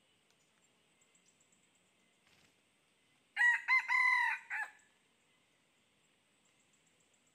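Red junglefowl rooster crowing once, a short crow of about a second and a half with a few brief breaks, about halfway through.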